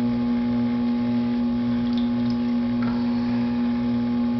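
Electric potter's wheel motor running with a steady hum.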